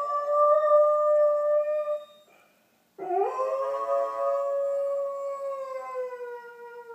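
Doberman howling, set off by distant emergency sirens. One long howl ends about two seconds in; after a short pause a second howl swoops up, is held, then slowly falls and fades near the end.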